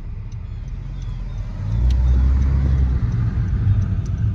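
Low rumble of road traffic, growing louder about two seconds in as a vehicle goes by.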